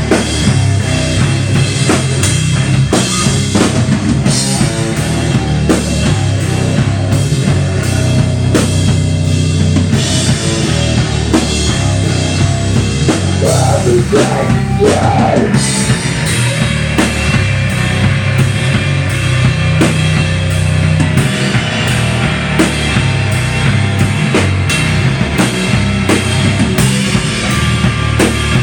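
Live rock band playing loud, with electric guitar, bass guitar and a drum kit keeping a steady, driving beat.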